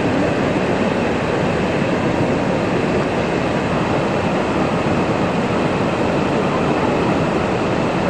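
Steady rushing roar of a waterfall, an even wash of falling water with no breaks.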